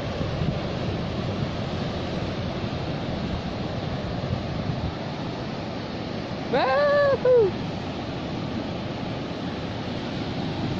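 Steady wash of ocean surf on a beach, mixed with wind. About two-thirds of the way through, a short pitched call rises and falls for about a second over it.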